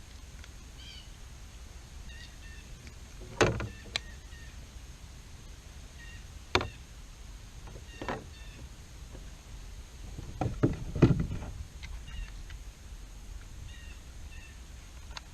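Scattered knocks and thumps of gear against a kayak, the loudest a quick cluster about eleven seconds in, over a low steady rumble. Small birds chirp now and then.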